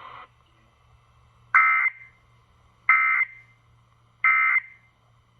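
Emergency Alert System SAME data tones: three short, identical bursts of warbling digital code about a second apart, the end-of-message (EOM) signal that closes an EAS alert.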